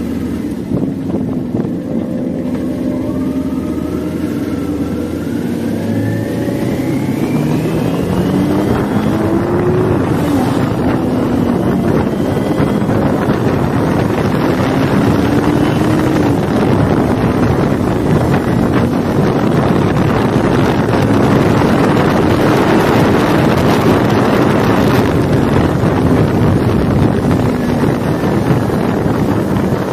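Kawasaki Ninja 400's parallel-twin engine accelerating hard, its pitch climbing and then dropping at each upshift, several times over. Wind noise on the microphone grows louder as speed rises.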